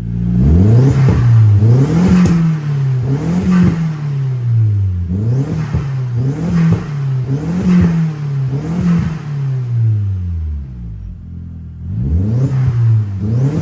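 Mk4 Volkswagen Jetta GLI engine being revved over and over in quick blips, the pitch climbing and dropping about once a second, with a brief lull near the end before the blips start again.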